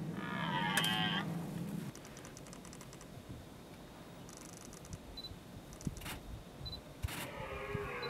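Red deer stag roaring during the rut. The call falls in pitch and ends about two seconds in. It is followed by quieter rustling and a few sharp knocks, and another roar begins near the end.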